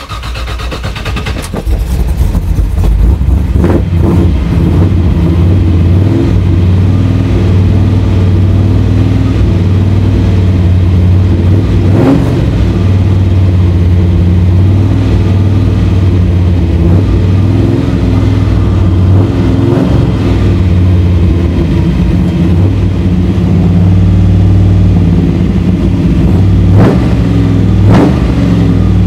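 Freshly rebuilt Chevy 383 stroker small-block V8 running through a 3-inch stainless exhaust. It comes up to speed in the first couple of seconds and is then held on light throttle with a few blips. It won't idle on its own, which the owner puts down to debris clogging the carburetor's idle circuit.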